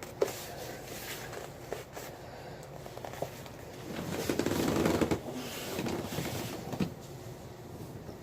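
Handling and working at a cardboard mailer package: scattered clicks and taps, with a louder stretch of rustling and scraping about four to five seconds in.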